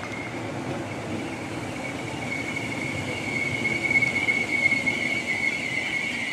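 Merseyrail Class 507 electric multiple unit pulling into a platform and slowing. A low rumble of running gear sits under a steady high squeal, and both grow louder as the train nears.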